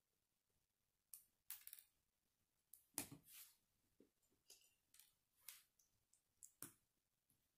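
Faint clicks and snaps of plastic K'nex rods and connectors being handled and pressed together, about nine scattered clicks, the sharpest about three seconds in.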